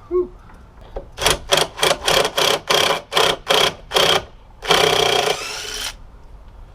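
Cordless impact driver run in about ten quick trigger bursts, then one longer run of about a second, driving a fastener.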